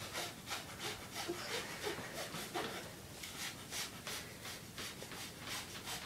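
A person breathing fast and hard in quick, even puffs, about three a second: deliberate hyperventilation done to make herself faint.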